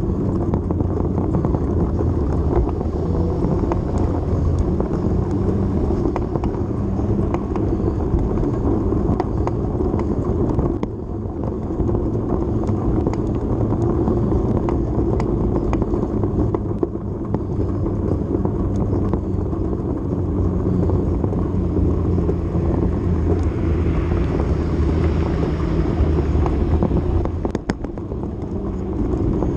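Steady rumble of a ride along pavement, wheel and wind noise with a low drone underneath, dipping briefly twice.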